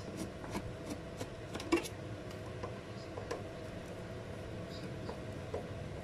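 Small clicks and scrapes of a screwdriver working the screws and cover of the inverter control-board box on the back of a refrigerator. The clicks come thickest in the first two seconds, then sparser, over a steady low hum.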